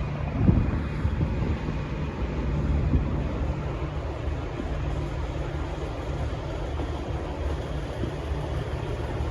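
Diesel locomotive engine running with a steady low hum, with wind noise on the microphone. Two knocks stand out, the loudest about half a second in and another about three seconds in.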